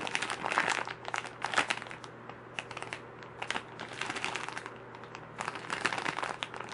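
Crinkling plastic packaging being handled, in irregular bursts of small crackles.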